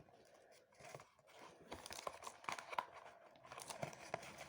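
Packaging being torn open and crinkled by hand: a quiet, irregular run of small rips and crackles that thickens about a second and a half in.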